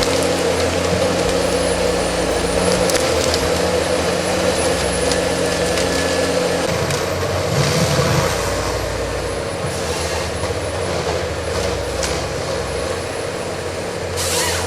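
Diesel engine of a forestry harvester running steadily.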